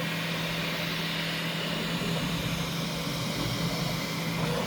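Bambu Lab P1S 3D printer running mid-print: a steady whirring hum of its cooling fans and motors, with one constant low tone.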